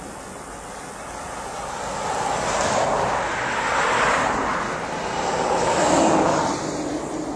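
Motor vehicles passing on the highway: tyre and engine noise swelling and fading in waves, loudest about six seconds in.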